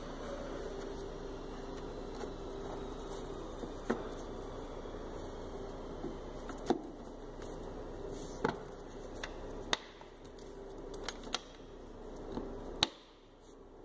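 Plastic air filter housing lid on a 2005 Hyundai Elantra being seated and pressed down by hand: a handful of sharp plastic clicks and knocks at irregular intervals, the loudest near the end, over a steady background hum.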